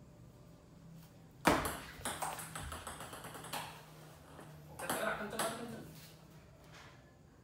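Table tennis ball clicking off paddles and the table during play: a sharp click about a second and a half in, a run of lighter, quicker clicks after it, and another cluster around five seconds in.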